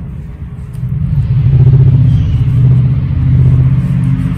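A low, steady motor rumble, like an engine running nearby, growing louder about a second in and holding.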